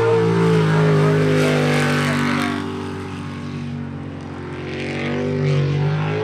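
Jet sprint boat engine running hard through a timed course run, its pitch shifting as it works the turns. It fades somewhat a few seconds in and grows louder again near the end.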